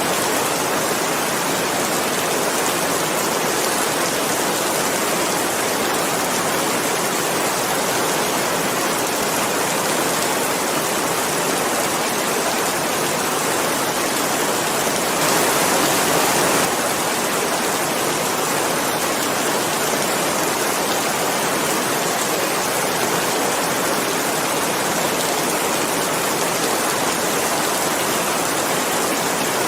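Steady heavy rain, an even hiss with no separate drops standing out, swelling slightly for a moment about halfway through.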